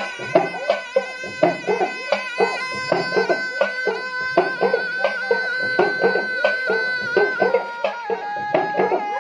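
Snake charmer's been (pungi), the gourd pipe with a drone, playing a reedy folk melody over a steady drone, with drum beats keeping a quick rhythm. The tune holds one long high note through the middle and drops to a lower note near the end.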